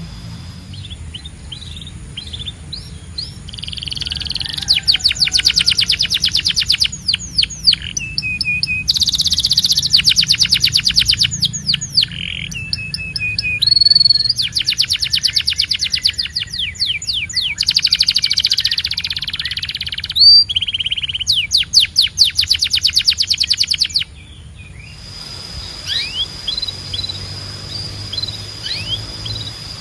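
Domestic canary singing: runs of very fast rolling trills, each lasting a second or two, broken by short pauses and clear high whistled notes. About three-quarters of the way through the song drops to softer scattered chirps and short notes.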